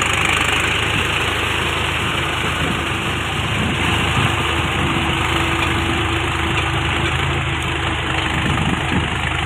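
Kushal 3456 tractor's diesel engine running steadily under load as it pulls a rotavator through a flooded paddy field.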